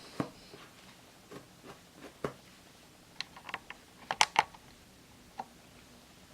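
Irregular light clicks and taps, about a dozen spread over several seconds, the loudest a quick cluster of three a little after four seconds in.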